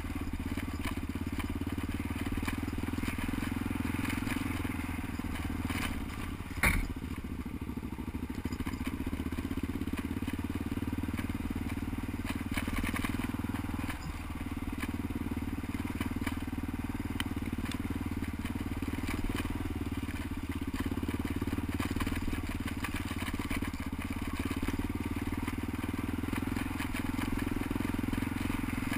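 Kawasaki KLR650's single-cylinder four-stroke engine running steadily while the bike rides a rough dirt trail, with one sharp knock about seven seconds in.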